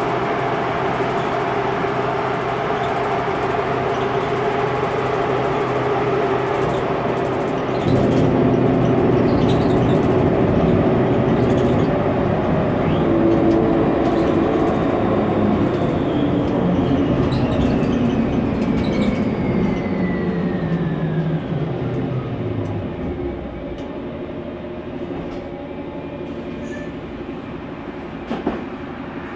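Interior sound of a Mercedes-Benz Conecto NGT city bus under way: its natural-gas six-cylinder engine and Voith automatic gearbox running steadily, louder from about eight seconds in. Through the middle a whine falls in pitch along with the engine as the bus slows, and the sound settles quieter near the end.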